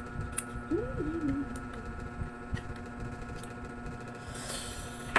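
Close-up eating sounds of a person chewing and slurping instant noodles, with small clicks from wooden chopsticks against a plate, over a steady background hum. A short hummed tone rises and falls about a second in.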